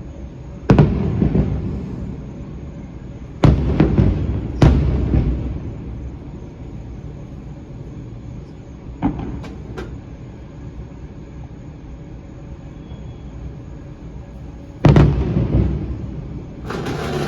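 Fireworks shells bursting: a series of sharp booms at irregular gaps, some close together, each trailing off into a rumble.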